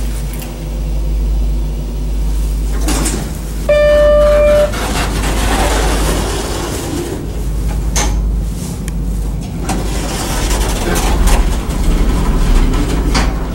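Hotel elevator signal: a single steady electronic beep about a second long, about four seconds in, over a steady low rumble with scattered knocks.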